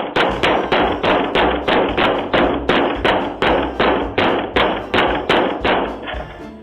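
Rapid, even banging, about four hard blows a second kept up without a break, heard through a doorbell camera's thin-sounding microphone. The blows stop near the end.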